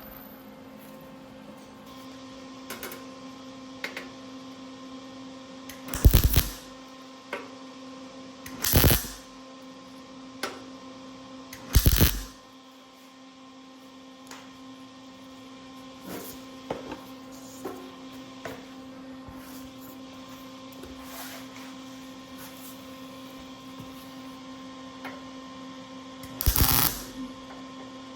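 Welder laying short tack welds on the radiator panel: four bursts of about half a second each, three close together in the first half and one near the end, over a steady electrical hum.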